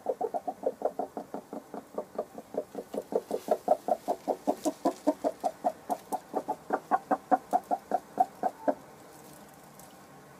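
Sussex hen clucking in a fast, even run of short calls, about five a second, while she sits on the nest to lay an egg. The calls stop abruptly near the end.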